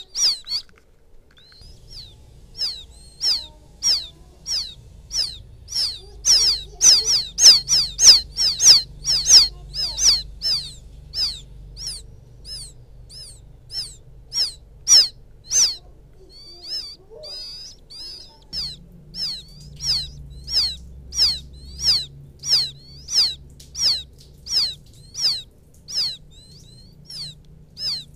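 Quail chicks peeping over and over, about two short, high, falling calls a second, calling for their mother. The calls are loudest a few seconds in, and a faint low hum runs beneath them.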